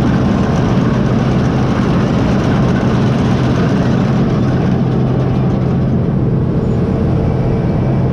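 Heavy engine running steadily at an even speed, a constant low hum under a wide rushing noise; the higher hiss eases off a little about four seconds in.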